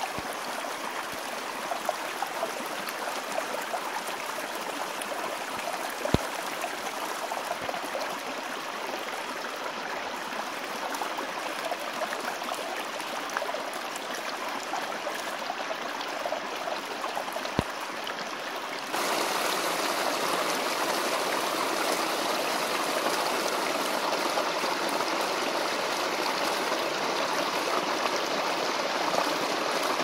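A small hillside stream running and babbling over rocks. About nineteen seconds in it becomes louder and fuller, from close to a small cascade. There are two brief knocks, about six and seventeen seconds in.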